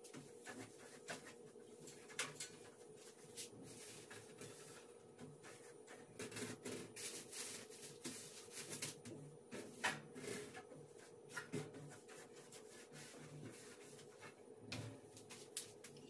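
Cloth wiping and rubbing on a gas range's oven, with scattered small knocks and clatters as the door and racks are handled; the sharpest knock comes about ten seconds in.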